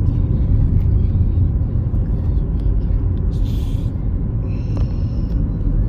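Steady low road and engine rumble inside a moving car's cabin, with a brief hiss about three and a half seconds in.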